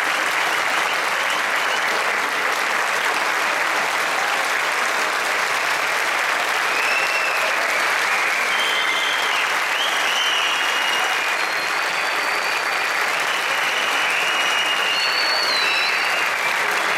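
Concert audience applauding steadily and without a break.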